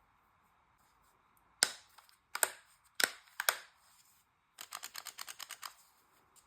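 Sharp plastic clacks from the cordless impact wrench and its parts being handled: four separate knocks, then a quick run of about a dozen lighter clicks.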